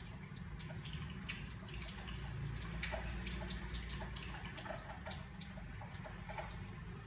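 Soft, irregular clicks of a crochet hook working yarn through a round of single crochet stitches, over a low steady hum.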